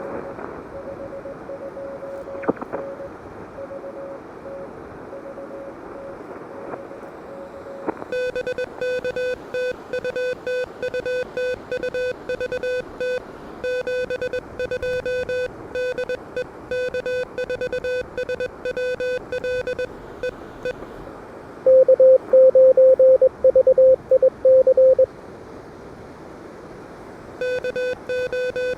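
Morse code (CW) from an Elecraft KH1 transceiver: receiver hiss with a faint Morse signal at first, then about eight seconds in a crisp, strong keyed sidetone as a transmission is sent. Around three-quarters through comes a short, much louder burst of Morse at a slightly higher pitch, and the keyed sidetone resumes near the end.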